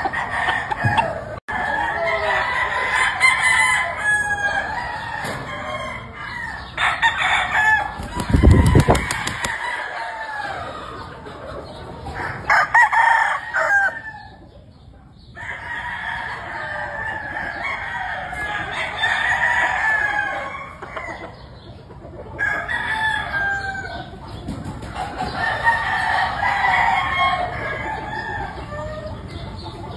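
Several gamefowl roosters crowing over one another, mixed with clucking, in near-continuous overlapping calls. A low thump stands out about eight seconds in, and the calling drops away briefly twice.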